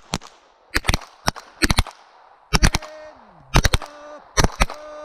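Pistol shots at a shooting range: about fifteen sharp reports, many in quick clusters of two or three, as more than one shooter fires at once. A short ringing tone trails some of the shots, one of them gliding down in pitch.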